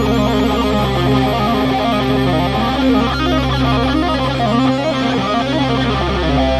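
Guitar playing a melodic line in the Phrygian mode over a sustained low drone note, with runs of quick notes that move up and down.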